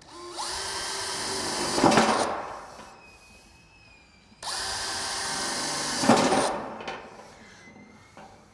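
Cordless drill boring fastener holes through a sheet-metal coping cap, twice: each run lasts about two seconds, gets loudest near its end, then the motor winds down with a falling pitch.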